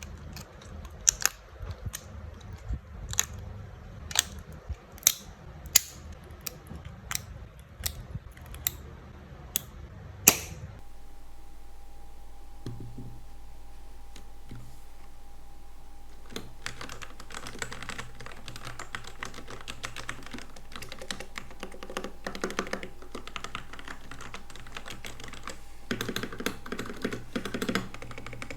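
Keys of a keyboard fitted with keycaps pressed one at a time, each a separate sharp click. After an abrupt change in the background, a faint steady tone comes in, and from about halfway through there is a fast run of continuous typing.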